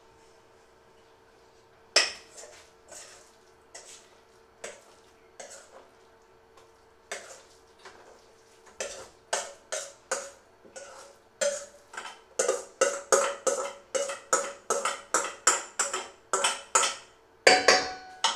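Metal spoon knocking and scraping inside a stainless steel bowl as food is emptied into a steel pot. The knocks begin about two seconds in, scattered at first, then come several a second in the second half, with a louder clatter near the end.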